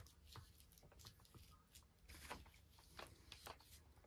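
Near silence with faint, scattered rustles and light clicks of a shotgun being handled and lifted out of its foam-lined hard case.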